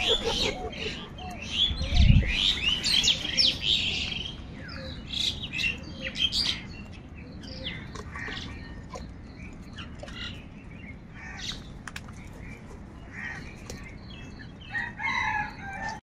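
A flock of house crows squabbling over food: many short overlapping calls, busiest in the first seven seconds, then sparser, with a fresh burst of calls near the end. A brief low thump about two seconds in.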